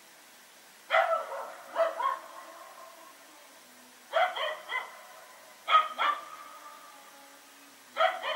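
Dog barking at night in short volleys of two or three barks: about nine barks in four groups a couple of seconds apart, each bark trailing a short echo.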